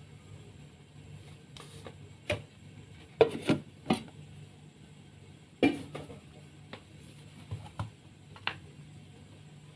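Utensil knocking and clinking against a cooking pot of coconut-milk curry: about nine irregular knocks, the loudest about three and six seconds in, over a faint steady low hum.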